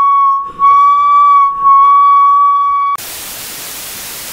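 Coleman Hyperflame propane camp stove whistling a steady, high-pitched tone under a pot of water, a whistle it gives for a while after a pot or pan is first set on the burner. About three seconds in, the whistle cuts off and a steady static hiss takes over.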